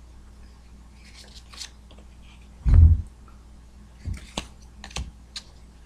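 Cardboard trading cards being flipped and slid off a stack by hand, with a few light clicks and snaps. A louder thump comes a little under three seconds in.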